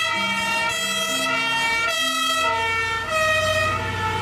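German fire engine's two-tone siren (Martinshorn) on an Iveco turntable-ladder truck, switching between a high and a low note about every half second, with a low rumble underneath.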